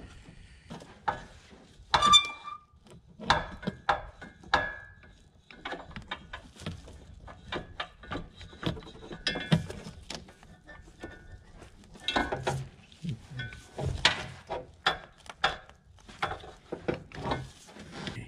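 Handling sounds of an air-conditioning hose being worked onto its O-ringed fitting: irregular clicks, knocks and rubbing of the hose parts, with a ringing clink about two seconds in.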